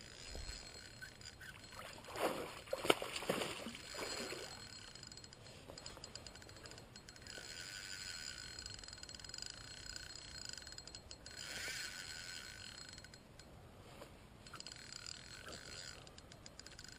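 A swish and handling noises with a sharp click around three seconds in, then a spinning reel cranked in long stretches, a steady whir with fine fast ticking as the lure is wound back in.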